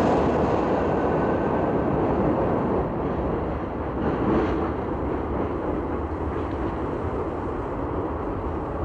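Métro train rumbling on the rails in an underground station, slowly fading as it pulls away into the tunnel.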